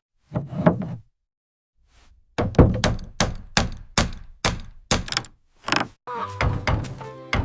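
Hammer blows on wood: two knocks, a short pause, then a steady run of about eight blows, roughly two a second. Music comes in near the end.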